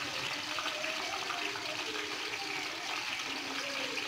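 Nendran banana slices deep-frying in hot oil in a kadai: a steady bubbling sizzle with fine crackling.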